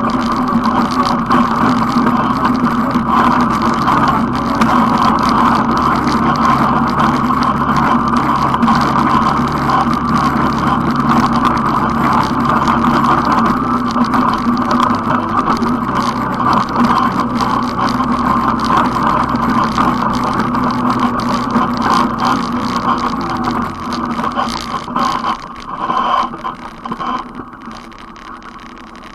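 ATV engine running while riding, steady with its pitch shifting a few times as the speed changes. The sound gets quieter over the last few seconds.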